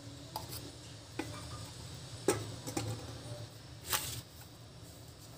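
About five light, sharp clicks and taps, spaced irregularly over a few seconds, the clearest about two and four seconds in, over faint room tone.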